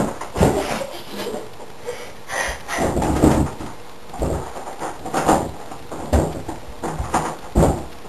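A wooden bathroom door being banged on and worked at by hand: about ten irregular thuds and knocks.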